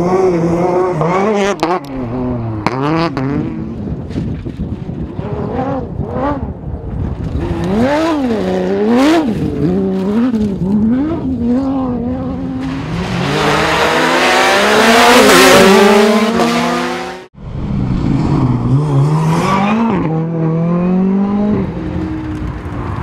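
Rally cars at full stage speed, engines revving up and down sharply through quick gear changes. The loudest moment is a car passing close with a rush of tyre noise. A sudden cut about two-thirds through goes to another car revving.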